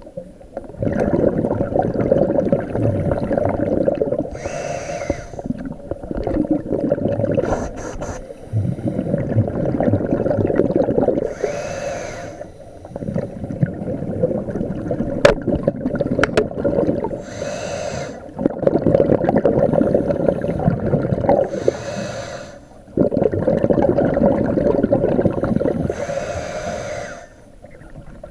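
Scuba regulator breathing underwater. Five short hissing inhalations come every four to six seconds, each followed by a long rumble of exhaled bubbles. A few sharp clicks fall near the middle.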